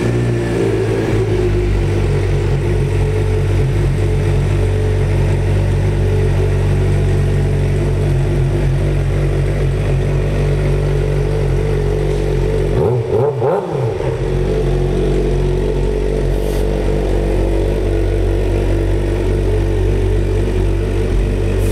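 2007 Suzuki GSX-R600's inline-four engine idling through a Jardine aftermarket exhaust with a steady, nice rumble. About halfway through, the pitch rises and falls once in a quick blip.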